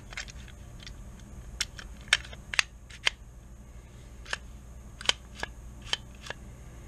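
Hard polymer and metal parts of a Ruger PC Carbine clicking and tapping together as the magazine well is handled and fitted against the receiver: about a dozen scattered sharp clicks, the loudest about two and five seconds in.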